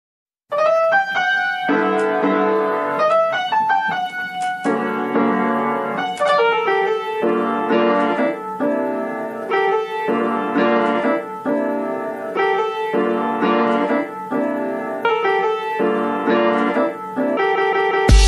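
Background music: a piano playing a steady, repeating pattern of chords, starting about half a second in, with a loud drum hit entering at the very end.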